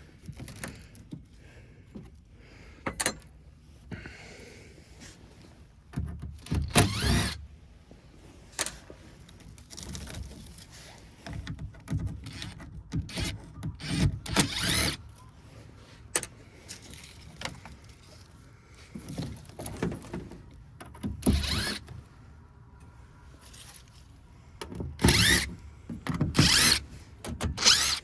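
Power drill-driver whirring in short bursts as it backs screws out of a heat pump's sheet-metal side panel, with scattered clicks and knocks of metal being handled between the bursts.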